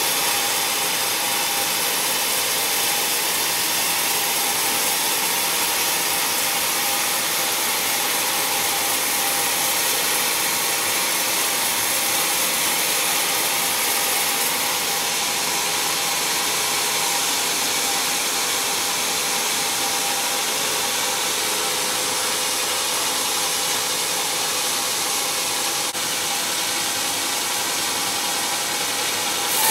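Band sawmill's blade running and cutting lengthwise through a thick squared block of wood: a steady sawing noise with a faint constant whine.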